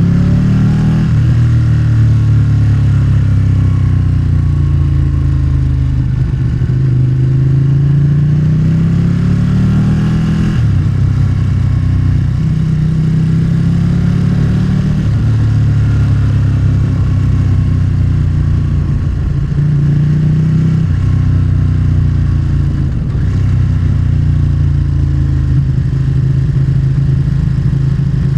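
Motorcycle engine heard while riding, its note climbing and then dropping sharply several times as revs rise and fall.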